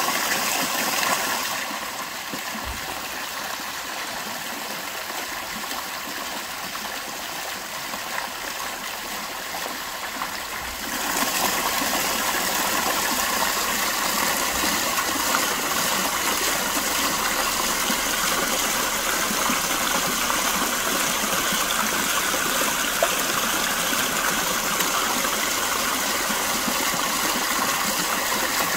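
Water from an artesian spring flowing and splashing over rocks in a steady rush. It grows softer about two seconds in and louder again around eleven seconds in.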